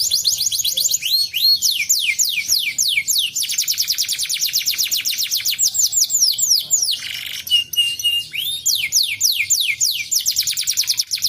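Domestic canary singing a long song of rapid, repeated high notes that each sweep downward in pitch, with a harsh buzzy phrase about seven seconds in followed by a few short steady whistles before the fast trills resume.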